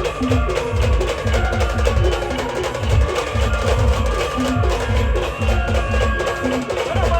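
Band music: a melody over heavy, regular bass-drum beats and other percussion.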